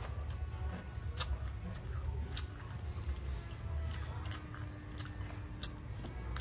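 Person eating mango salad with dried fish: a handful of short, crisp crunches and bites, the loudest about two and a half seconds in, over a low steady hum.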